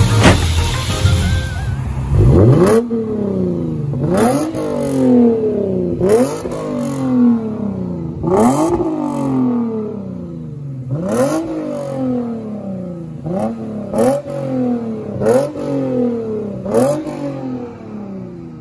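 Music fades out over the first couple of seconds. Then a 2017 Lexus IS350's 3.5-litre V6 is revved in quick blips, nine or so, each rising sharply in pitch and falling away. It runs through a custom Magnaflow exhaust with two resonators and the rear mufflers deleted.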